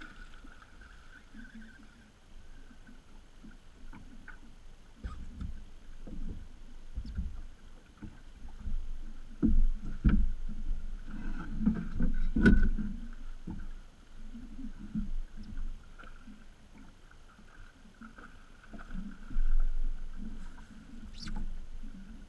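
Water sloshing and slapping against a small fishing boat's hull, with irregular low thuds and a few sharp knocks, loudest in the middle of the stretch and again near the end.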